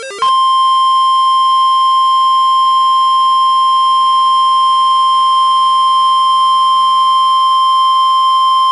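NOAA Weather Radio warning alarm tone: a single steady, loud 1050 Hz beep held for about eight and a half seconds, starting right after the last of the warbling digital header bursts. It signals a tornado warning.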